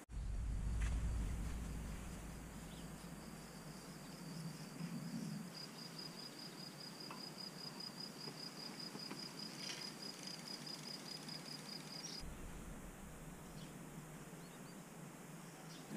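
A cricket trilling steadily at a high pitch in a fast, even pulse, stopping about twelve seconds in. A low rumble sits underneath during the first few seconds.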